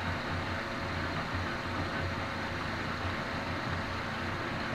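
Victor metal lathe running steadily, a low hum over an even hiss, while a carbide tool takes a light five-thousandths undercut pass on a steel sander spindle to clean out the groove worn by the oil seal.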